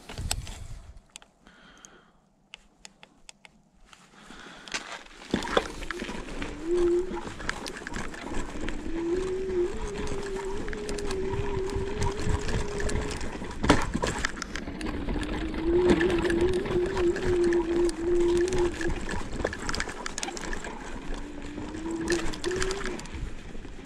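Joyor Y6S electric scooter riding a rough sandy forest track: a whine from the motor that rises in pitch in several pushes of acceleration, over a steady rumble and rattle with occasional sharp knocks. The first few seconds are quieter, with only a few clicks.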